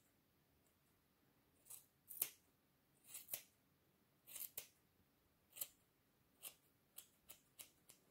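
Scissors snipping through hair as a fringe is trimmed: about ten separate snips, some in quick pairs, coming closer together near the end.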